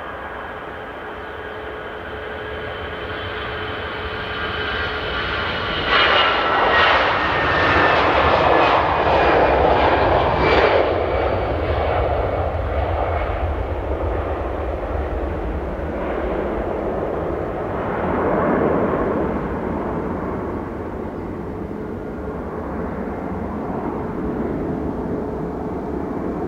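Jet engines of an Airbus A320-family airliner at takeoff thrust through the takeoff roll and climb-out. The noise builds and turns loud about six seconds in, with whining tones falling in pitch as the aircraft passes. It swells again briefly, then continues as a steady, slowly fading rumble while the jet climbs away.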